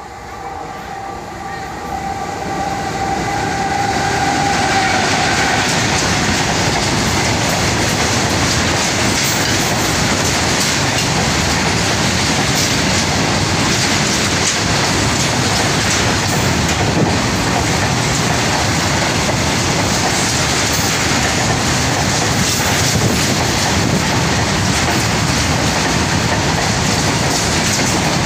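Goods train of covered wagons running through a station at about 60 km/h. The sound builds over the first four seconds as it approaches, with a steady high tone in the first few seconds. It then becomes a loud, steady rush of wagon wheels on the rails with faint repeated clicks.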